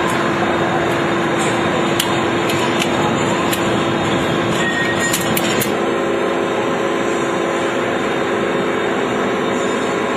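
Steady, loud industrial machinery noise with a constant hum, the hum changing pitch a little past halfway, and a few sharp metallic clicks in the first half.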